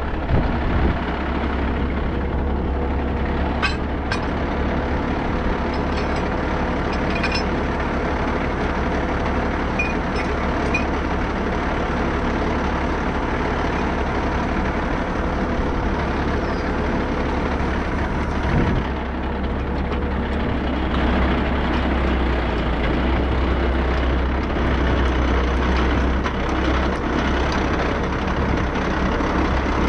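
Heavy vehicle engine running steadily at a constant speed, with a deep low drone.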